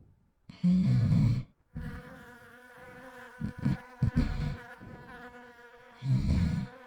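Honey bees buzzing, loud about half a second in and again near the end, with a fainter hum in between.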